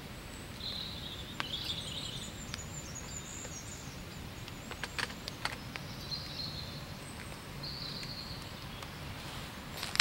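Woodland ambience with small birds singing and chirping on and off over a steady low background noise. A few light clicks and knocks come from hands adjusting a wooden large-format camera on its tripod, about a second and a half in, around the middle and near the end.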